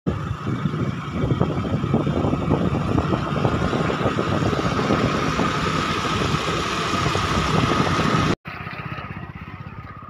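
Wind buffeting the microphone over a motor scooter's engine and tyre noise on a wet road while riding, with a steady whine above. About eight seconds in it cuts to a quieter, slower stretch of the same riding noise.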